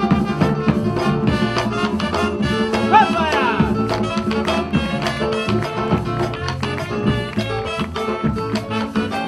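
Live cumbia band playing: hand drums keeping a steady beat under electric bass, keyboard and saxophones.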